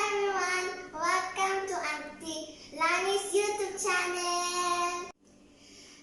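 A child singing a short melody in several phrases with long held notes, breaking off abruptly about five seconds in.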